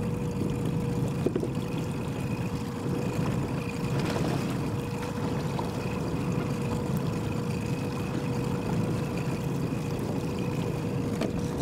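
Boat motor running steadily at trolling speed: a constant low hum with a steady higher whine above it.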